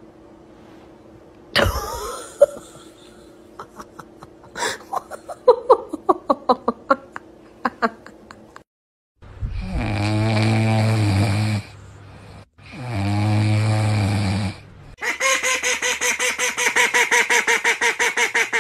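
French bulldog puppy asleep on its back, snoring in two long, low snores. Then a pet duck quacks rapidly, about six quacks a second. Earlier a sudden loud sound and a run of short sharp clicks are heard.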